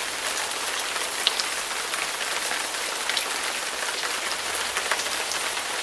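Steady rain-like hiss, as of rain falling on a surface, with scattered small ticks.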